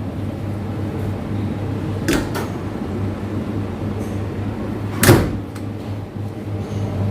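Dishwasher running with a steady low hum but not taking in water; its water supply line was later found shut. Two knocks sound, about two seconds in and a louder one about five seconds in.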